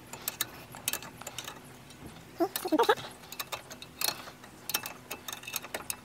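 Socket ratchet clicking in short, irregular runs as the brake caliper guide-pin bolts are turned in gently, with light metal clicks and a brief squeak about two and a half seconds in.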